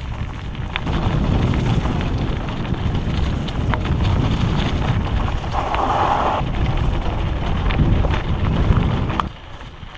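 Wind buffeting the microphone of a camera on a mountain bike riding fast on singletrack, a heavy rumble with scattered clicks and rattles from the hardtail bike on the rough trail. The rumble cuts off suddenly about nine seconds in.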